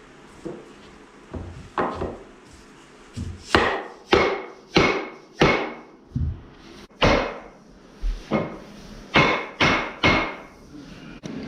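A series of knocks as lock-together floor planks are tapped into place, soft at first, then sharper and louder, with a short ring on each blow.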